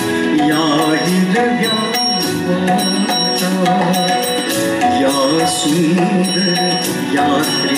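A man singing a Marathi song live, with instrumental accompaniment holding steady tones and a drum keeping a regular beat.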